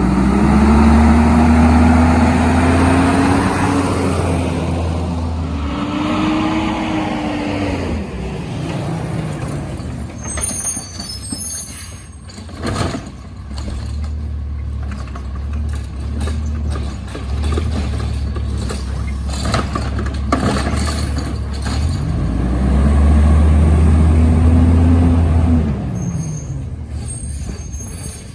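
Autocar ACX garbage truck with a Rapid Rail automated side-loader working the curb: the engine runs steadily and revs up and falls back three times as it drives the arm, with a cluster of sharp knocks midway and another near the end of the middle stretch.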